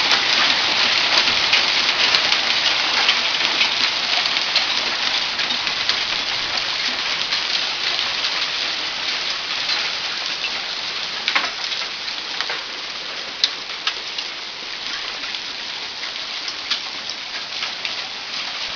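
Hailstorm: hail and rain pelting down on surfaces in a dense, steady clatter, with occasional louder single strikes standing out. It eases gradually.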